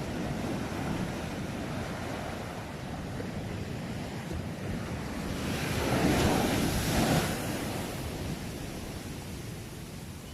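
Sea waves washing onto the shore in a steady rush, one wave breaking louder about halfway through.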